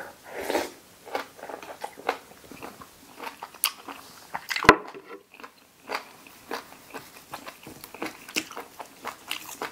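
Close-up chewing and crunching of boiled pork ear's cartilage: a steady run of short crisp crunches. One sharp, louder click comes about four and a half seconds in.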